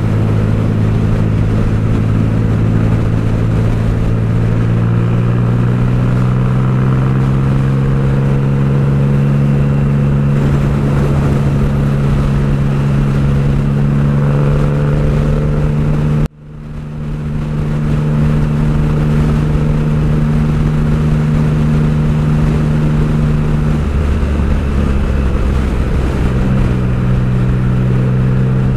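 Motorcycle engine running at steady cruising speed on the road, its note rising slowly over the first several seconds and then holding, with wind noise over the microphone. The sound cuts out sharply for a moment about sixteen seconds in. Near the end the engine settles to a lower note.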